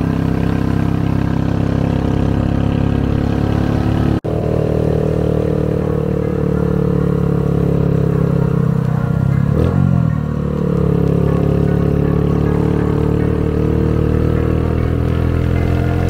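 Motorcycle engine running steadily on the move, its pitch dipping and picking up again about two-thirds of the way through as the rider eases off and accelerates. The sound cuts out for an instant about a quarter of the way in.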